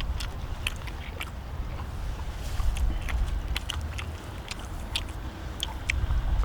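People chewing and eating cheese dak-galbi, with scattered short wet mouth clicks and smacks over a steady low rumble.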